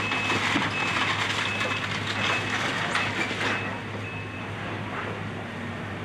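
Demolition excavator's diesel engine running steadily, with a high reversing alarm beeping repeatedly for the first four seconds or so, over crunching and scraping of wreckage that is loudest in the first half.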